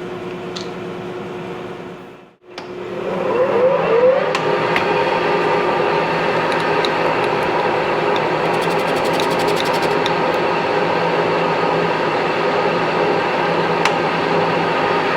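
A small electric motor, likely a shop power tool, winds up about three seconds in after a brief dropout, then runs at a steady whir.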